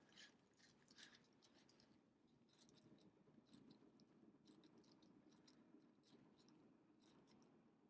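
Near silence: quiet room tone with faint, scattered small clicks and soft handling noises.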